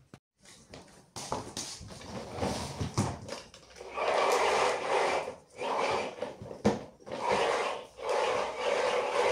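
Power cord being pulled out of a canister vacuum cleaner's retractable cord reel in repeated rasping strokes, each under a second long, starting about four seconds in. Before that come scattered clicks and knocks of the vacuum being handled. The motor is not running.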